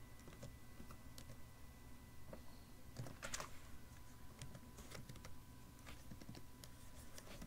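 Faint, irregular keystrokes on a computer keyboard: slow typing with uneven gaps, a few keys in quick succession about three seconds in. A faint steady high tone hums underneath.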